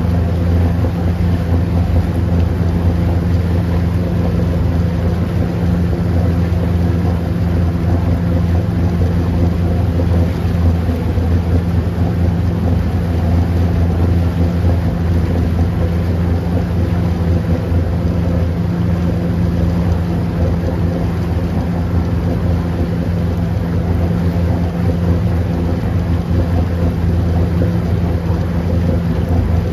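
Motorboat engine running steadily underway, a constant low drone, with the propeller wash churning and splashing behind the stern.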